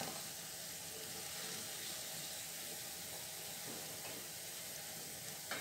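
Mysore vadas deep-frying in a pan of oil on a low flame: a steady, even sizzle.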